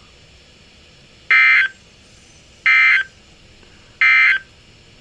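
Emergency Alert System SAME data tones: three identical short bursts of digital warbling, each about a third of a second long and a little over a second apart. This is the end-of-message (NNNN) code that closes an EAS alert.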